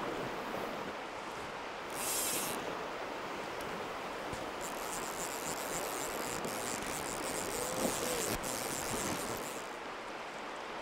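Steady rush of river water, with a high, continuous buzz over it from about five to ten seconds in, the sound of a fly reel's click drag as line pays out.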